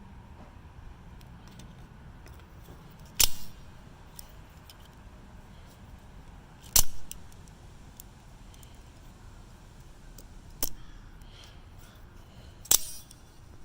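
Out-the-front automatic knife blades firing out and snapping back, four sharp metallic snaps a few seconds apart, with faint small clicks of handling between them.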